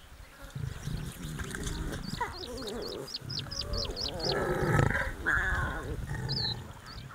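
Lion cubs calling with low grunts and wavering mewing calls, loudest from about three to five and a half seconds in. A small bird chirps repeatedly high above them.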